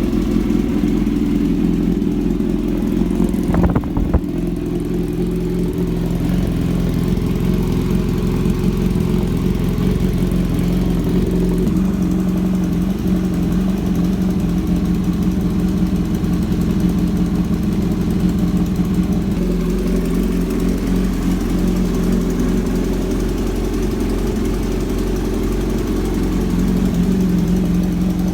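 Kawasaki Z900 inline-four engine idling steadily just after a cold start, with a ticking from the front of the engine that is literally loud. A service centre suspects a leaking exhaust header gasket after a full-system exhaust was fitted.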